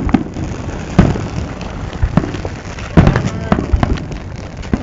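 Fireworks going off: two sharp, loud bangs, about a second in and about three seconds in, with smaller pops between them.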